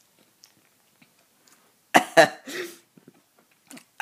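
A young man coughing and sputtering in two or three quick, loud bursts about two seconds in, a reaction to a swig of straight lemon juice; before that there are only a few faint clicks.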